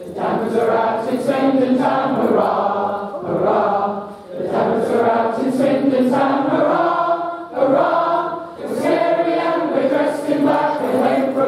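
A large group of voices singing together in unison, in phrases a few seconds long with short pauses between.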